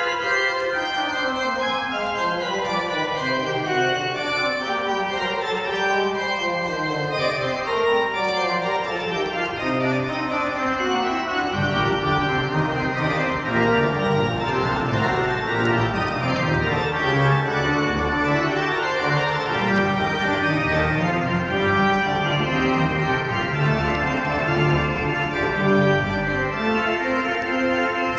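Church organ being played: sustained chords over stepwise falling runs in the lower voices, with a deeper bass line coming in about eleven seconds in.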